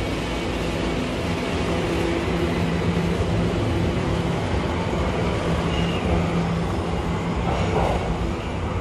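Steady rumble and low hum of a Ginza Line subway train running in the underground station.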